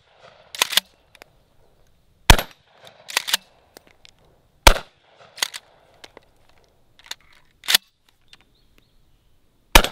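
Remington 870 pump-action shotgun firing three shots a little over two seconds apart, the last near the end. Each shot is followed by the clack of the pump slide being racked.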